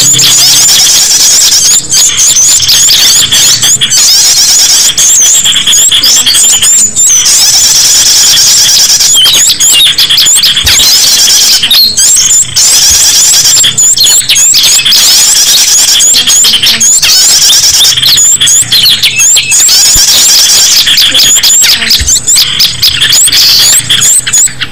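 A dense, loud chorus of many small songbirds calling excitedly at once: rapid high-pitched chirps, trills and whistles layered over one another without a break. It is a mixed bird-luring recording of agitated 'ribut' calls from small birds such as tailorbirds, prinias and ioras.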